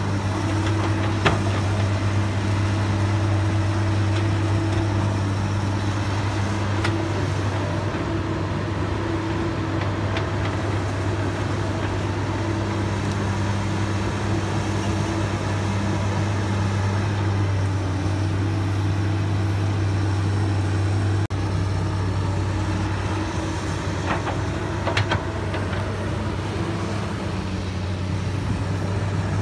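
Komatsu PC200 excavator's diesel engine running steadily with a low, even hum. A sharp click about a second in and a couple more near the end.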